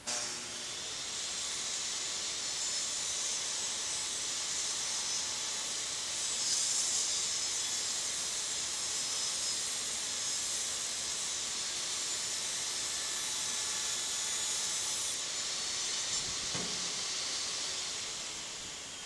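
DeWalt compact jobsite table saw switched on, running with a steady high hissing whine while a board is ripped lengthwise against the fence, then winding down near the end.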